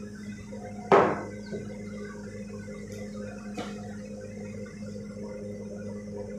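A steady low electrical hum, with one sharp knock about a second in and a fainter tap a few seconds later.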